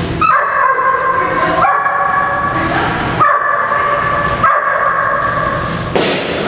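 Australian shepherd giving four long, high-pitched whining cries one after another, each about a second and a half.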